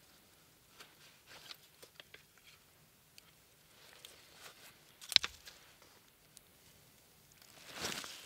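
Faint small clicks and knocks of a homemade wooden fishing rod and its ratchet reel being handled, with one sharp click about five seconds in and a brief swish near the end.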